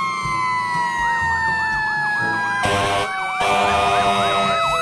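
Fire engine sirens: a wailing siren slowly falling in pitch, joined from about a second in by a second siren yelping quickly up and down. Two harsh blasts come in the middle, the second about a second long.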